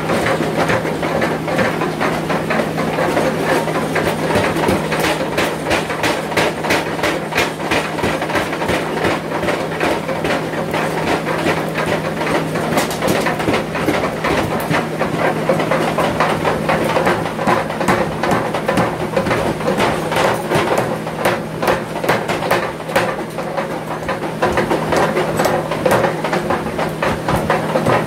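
Forge-shop machinery running: a steady hum under rapid, uneven metallic knocking and clatter.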